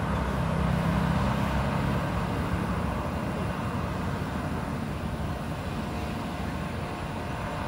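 Airliner engine and airflow noise, a steady roar with a low hum that fades out about three seconds in.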